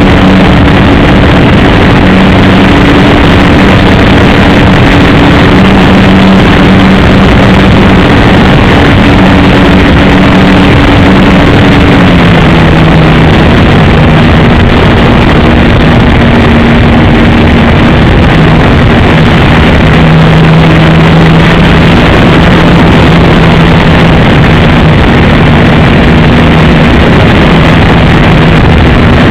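Engine of an RC model Piper J-3 Cub buzzing steadily in flight under a loud rough hiss. Its pitch drops about twelve seconds in and wavers a little later on.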